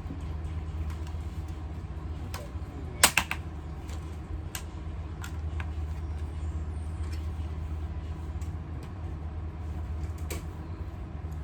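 Scattered light clicks and taps over a steady low hum, with a cluster of sharp clicks about three seconds in.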